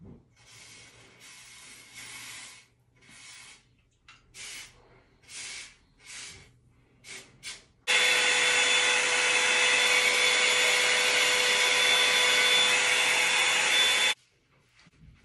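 Several short hissing bursts, then a hot air dryer brush running loudly and steadily for about six seconds before it is switched off suddenly.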